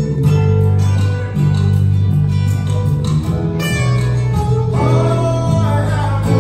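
Samoan church choir singing a hymn with guitar accompaniment, held bass notes changing about once a second beneath the voices.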